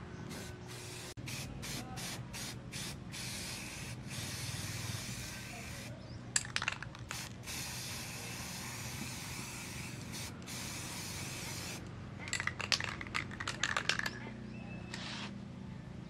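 Aerosol spray-paint can hissing in repeated bursts, some short and some long, as red paint goes onto a sheet-metal engine tank. Two brief clusters of sharp clicks break in, one about six seconds in and one around twelve to fourteen seconds in.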